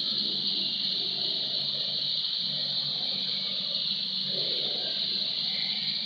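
Water from a tiered foam-nozzle fountain falling and splashing steadily into its basin, a constant hiss.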